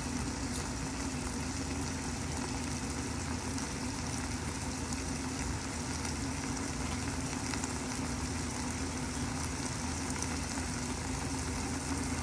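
Chicken and vegetable stew simmering in a covered frying pan: a soft, steady bubbling and crackling over a constant low hum.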